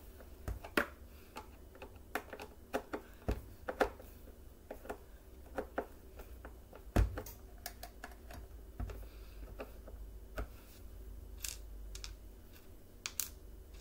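Hand screwdriver turning screws into the plastic housing of a Bissell Powerforce Bagless vacuum: irregular small clicks and ticks of the tool and screws on hard plastic, with one louder knock about seven seconds in.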